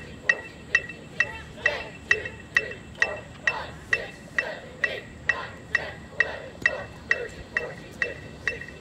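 Amplified electronic metronome ticking at a steady marching tempo, a little over two sharp high clicks a second, with voices sounding between the beats.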